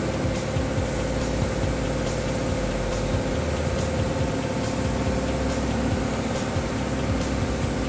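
Steady, loud mechanical drone with a hum and a constant hiss, like an engine running without a break.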